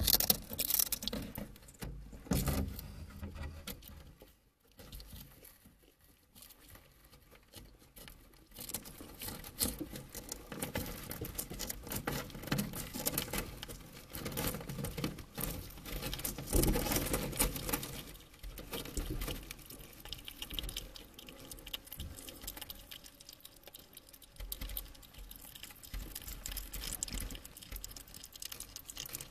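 European hedgehog chewing a snail: a dense run of small, crisp crunching clicks and wet smacks as it bites through the shell and flesh.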